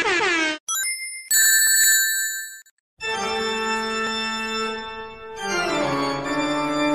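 Intro music. A brief sting of high, steady electronic tones comes first, then after a short silence come sustained organ chords, with the chord changing about two-thirds of the way in.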